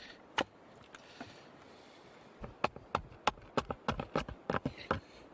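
Small axe shaping a cedar paddle blank: a couple of sharp blows at the start, a short pause, then a fast run of light strokes, several a second.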